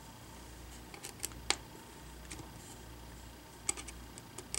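Small screwdriver and fingers working a tiny screw out of a laptop screen's metal mounting tab: scattered light clicks and taps, the sharpest about a second and a half in and a quick cluster near the end, over a faint low hum.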